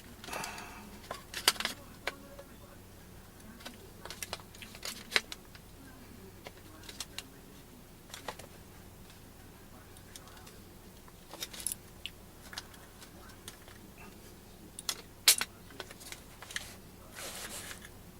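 Scattered metallic clicks, clinks and short rattles of AR-15 handguard halves being worked into place against the spring-loaded delta ring, with a couple of louder sharp clicks about a second and a half in and near the fifteen-second mark.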